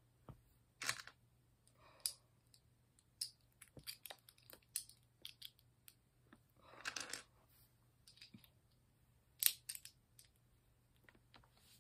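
Small plastic LEGO pieces clicking and rattling against each other as they are handled and fitted together, in scattered light clicks, with a short rustle of rummaging through pieces about seven seconds in.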